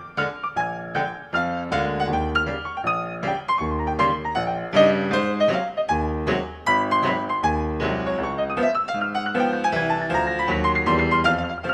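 Ragtime piano music, with a steady bass under a quick, busy melody.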